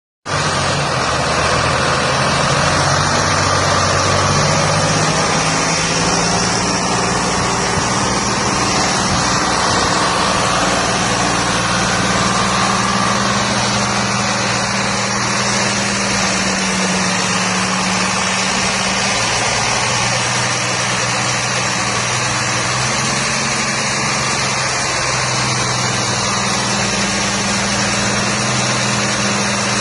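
Three-cylinder Detroit Diesel engine of an American WBD85 pressure washer running steadily, its pitch shifting slightly a few times.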